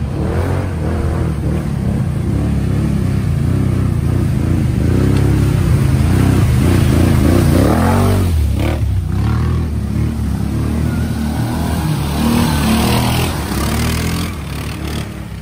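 Motor vehicle engine revving hard under load, its pitch rising and falling again and again as it churns through deep sawdust.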